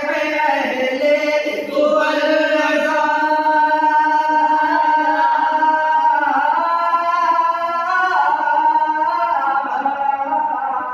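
A man singing an Urdu naat unaccompanied into a handheld microphone, with long held notes and ornamented glides between them.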